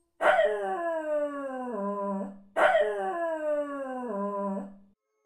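A large dog howls twice. The two howls are identical, and each is a long call that starts high and slides down in pitch, with a short waver near its end.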